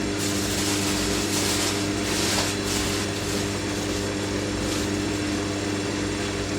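Hoover NeXtra HNL3146 front-loading washing machine turning its drum at high speed after draining, in a high-speed distribute going into a spin: a steady motor hum and whine with a rushing hiss that swells for a second or two.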